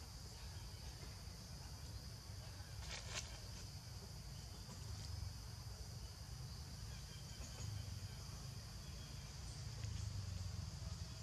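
Steady high-pitched buzz of forest insects over a low rumble, with a short crackle about three seconds in.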